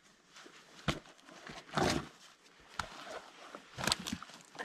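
Boots crunching and scraping through twigs and brush on a forest floor, in irregular steps, with a longer scraping crunch about two seconds in.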